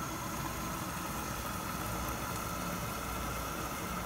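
Steady low hum with a faint hiss from the stovetop, where a lidded pan of tomato sauce is simmering.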